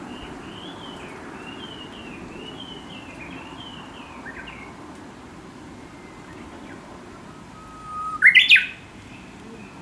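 A faint run of wavy, repeated warbling notes from a bird. About eight seconds in, a Japanese bush warbler sings the loudest phrase: a held whistle followed by a quick rising 'ho-kekyo' flourish.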